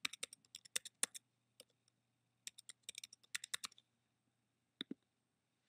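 Computer keyboard typing: a quick run of keystrokes in the first second, a pause, then a second run of about a second as the password is entered again. Two more clicks come near the end.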